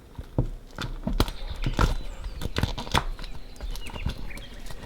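Plastic toy packaging being handled and opened: a string of irregular sharp clicks and knocks.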